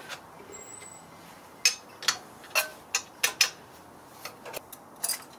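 Loose steel parts of a millstone's eye fitting being handled and taken apart by hand: a run of sharp metallic clicks and clinks, about six in two seconds, with a few fainter ones near the end.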